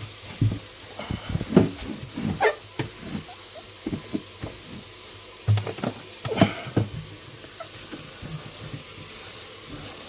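Scattered knocks and bumps of plastic fridge-freezer parts being handled and washed, with a few short squeaks.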